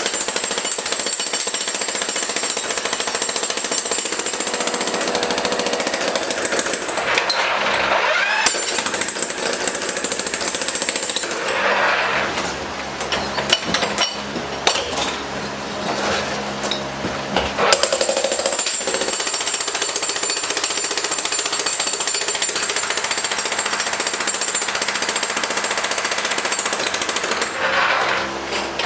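Jackhammer chipping out concrete curbs, hammering almost without a break, with several seconds of more uneven, lighter hammering in the middle.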